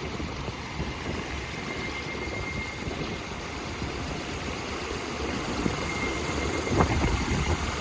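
Large homemade fan, driven by a hoverboard hub motor, running at full speed with its blades flexing back, giving a steady chopping whoosh, the 'helicopter noise'. A faint high whine comes and goes.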